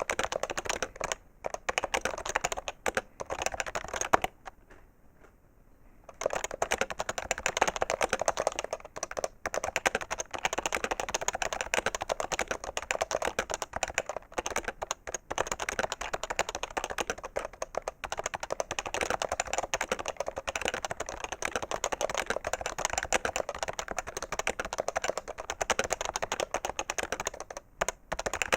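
Fast, continuous typing on an HHKB Professional 2 keyboard with Topre electrostatic-capacitive switches, a dense stream of key clacks. About four seconds in, one keystroke is louder than the rest, followed by a pause of about two seconds before the typing resumes.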